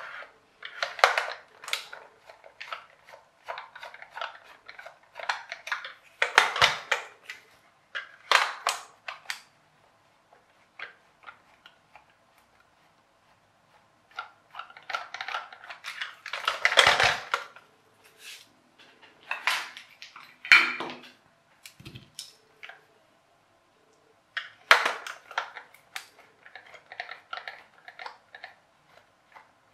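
Screwdriver turning screws out of the underside of a plastic toy RC car, in spells of clicking and scraping with a few louder knocks as the plastic body is handled. There is a quiet stretch of a few seconds about a third of the way in.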